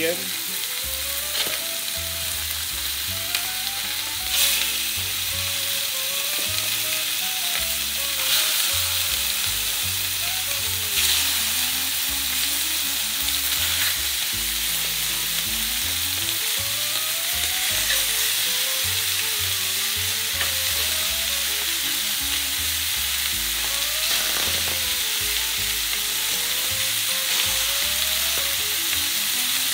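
Raw chicken thighs sizzling steadily in a very hot paella pan, searing to brown, as more pieces are laid in with a few short knocks.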